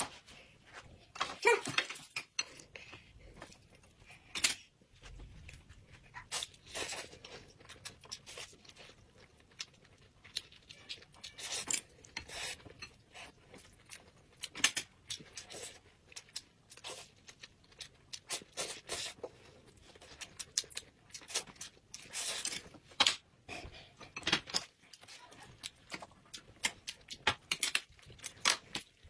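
Eating sounds at a table: irregular short clicks and smacks of chopsticks against plates and bowls, mixed with chewing and slurping of noodles.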